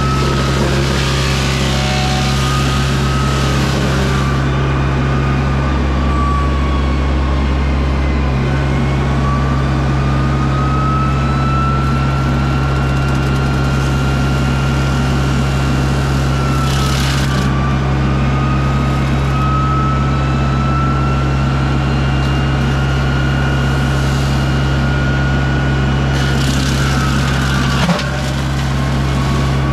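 John Deere 60G compact excavator running steadily while its Baumalight brush mulcher head spins with a high whine. The whine sags and recovers each time the head bites into brush, with bursts of shredding, chipping noise at the start, midway and near the end, and a single sharp knock just before the end.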